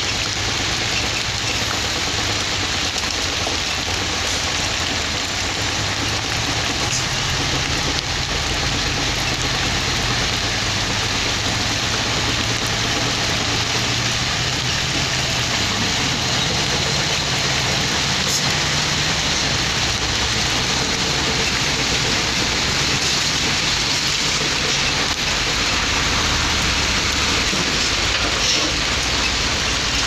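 Diesel dump truck engines running steadily at a low hum, under a steady hiss that sounds like rain.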